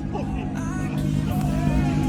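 Background music with steady low held notes.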